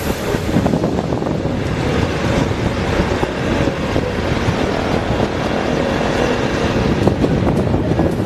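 Motorcycle running at riding speed, its engine mixed with heavy wind buffeting on the microphone.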